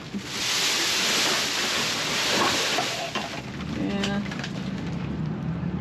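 Loud rustling hiss of a denim sleeve brushing against the microphone as a person climbs out of a metal dumpster, lasting about three seconds, then a low steady hum.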